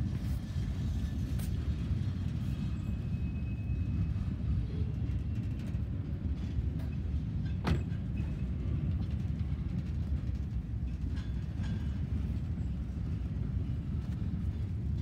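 Freight train of boxcars and tank cars rolling past over the rails: a steady low rumble, with one sharp clank about eight seconds in.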